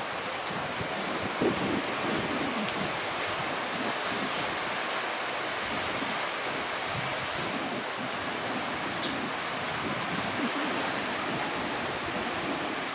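Steady rushing of sea waves and surf, with wind buffeting the microphone now and then, the strongest gust about a second and a half in.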